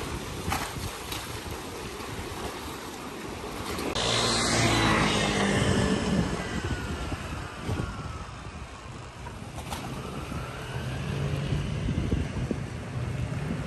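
Outdoor harbour ambience with wind buffeting the microphone and a low rumble, and an engine passing by from about four seconds in, loudest there and falling in pitch as it goes away.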